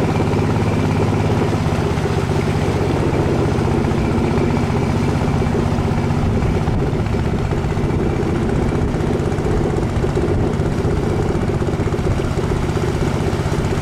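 River boat's engine running steadily under way, a constant low drone with a hiss of water and wind over it.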